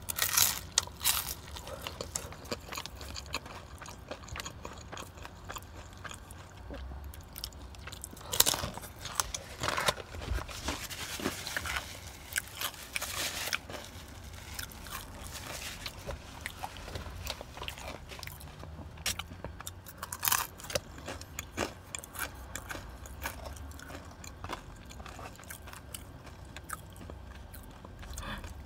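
Close-up eating sounds: crunchy bites into a deep-fried snack filled with glass noodles, then chewing, with the loudest crunches just after the start, about eight seconds in, and about twenty seconds in.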